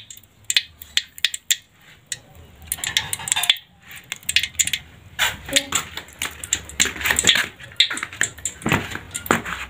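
Noodle-and-egg omelet frying in hot oil in a wok: irregular crackling and popping, with scattered clinks of a metal utensil against the pan.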